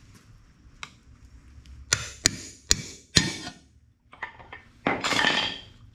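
A hammer strikes a screwdriver wedged behind the differential cover of a Dana 25/27 front axle four times in quick succession to pop the cover loose. About a second later comes a longer metallic scraping rattle as the cover breaks free.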